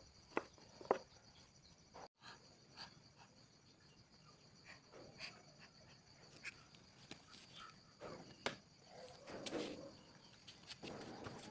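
Faint steady high insect trilling, with scattered light clicks and knocks and a short rustle about nine seconds in.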